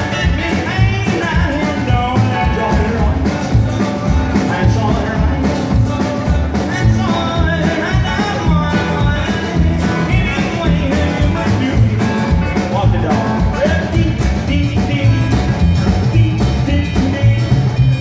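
Live band playing an upbeat rock-and-roll number on electric guitar, acoustic guitar, upright bass and drums, with a steady driving beat.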